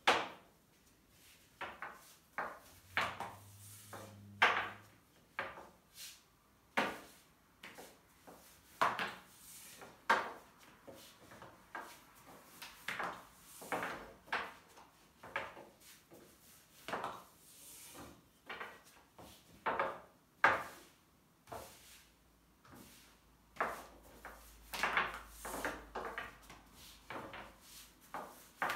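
Long, thin wooden rolling pin (oklava) rolling yufka dough over a glass tabletop: irregular wooden knocks and short rolling strokes, about one a second, as the pin is pushed back and forth and set down.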